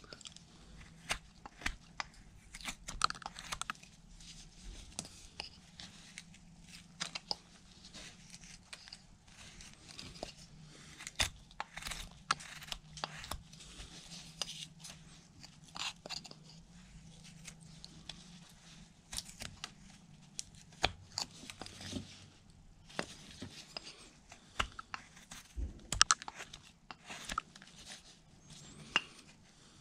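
Carving knife slicing into a basswood block, a long run of short, crisp cuts at an irregular pace as chips come off the sides.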